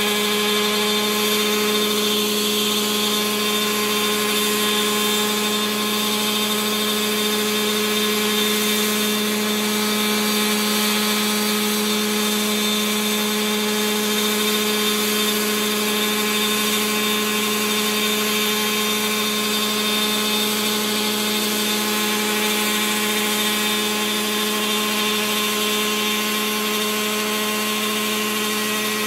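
Gas-powered Align T-Rex 700 RC helicopter running with its rotor spinning, lifting into a low hover. Its small two-stroke petrol engine and rotor make a loud, steady drone that holds one pitch throughout.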